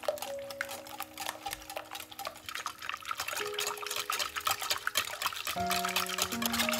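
Liquid being stirred in a bowl: quick, dense clinks and sloshing that grow busier about halfway through, over soft background music with long held notes.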